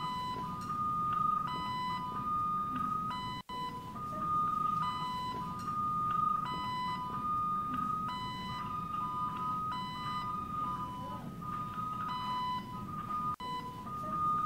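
Electronic two-tone alarm beeping steadily, its higher and lower tones taking turns over a low hum. The sound cuts out for an instant twice.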